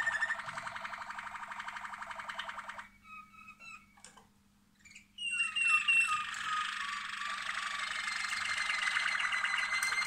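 Domestic canary singing: fast, rolling trills and repeated chirps, breaking off for about two seconds a third of the way in, then starting again with a bright, high trill.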